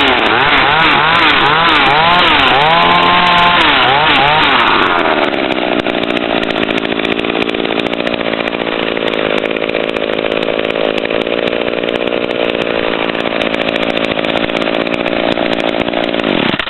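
McCulloch 320 two-stroke top-handle chainsaw blipped through a series of quick revs, then dropping back to a steady idle, and shut off near the end.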